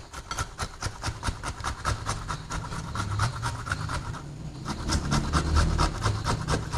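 Fresh ginger being grated by hand on a metal grater: rapid, even rasping strokes of the root scraping across the steel teeth.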